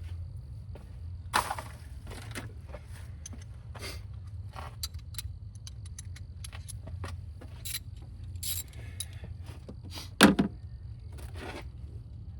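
Metal hand tools and engine parts clicking and clinking irregularly during hands-on spark plug work in a car's engine bay, with a louder clack about a second and a half in and the loudest near the end, over a steady low hum.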